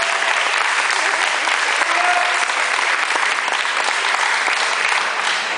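Crowd applauding, a dense, steady clapping at an even level.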